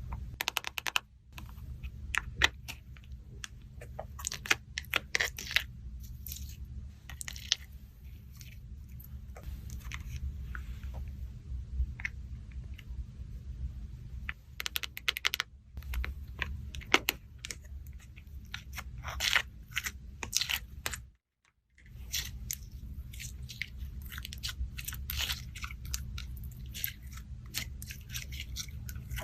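Slime being squished, stretched and pressed by hand, making irregular sticky crackles and clicking pops. The sound cuts out briefly a little past two-thirds through.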